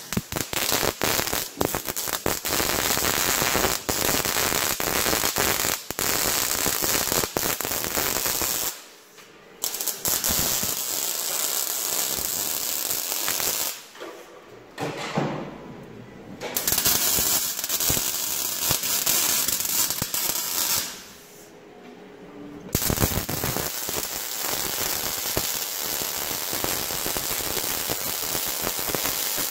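MIG welder's arc crackling steadily as steel is welded onto a pickup's frame, in long runs with three short pauses between welds.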